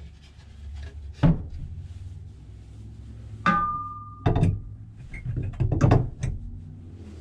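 A hinged wooden window shutter swung shut with a thunk, then a metal rod slid across it as a bar: a clank with a short ringing note about halfway, followed by a run of quick knocks and rattles as it is worked into place.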